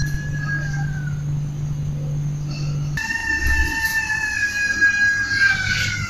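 Two long, high-pitched wailing cries from an unknown source, each held for seconds and sliding slowly down in pitch. The first fades out about a second in; the second starts about halfway through and runs to the end. The family took the sound for a woman's scream, though it is also likened to an animal's cry.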